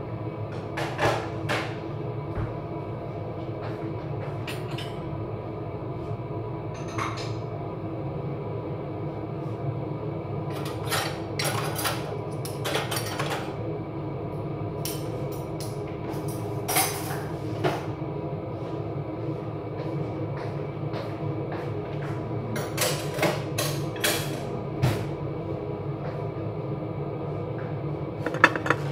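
Kitchen clatter during cooking: scattered knocks and clicks of pots, utensils and cupboard doors, over a steady hum.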